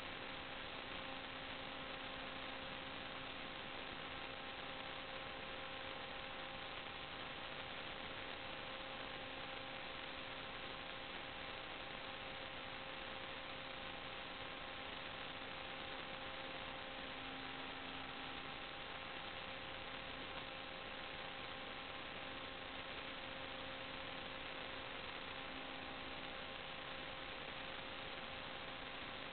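Steady electrical hiss and hum from a sewer inspection camera's recording electronics, unchanging throughout, with no other sound.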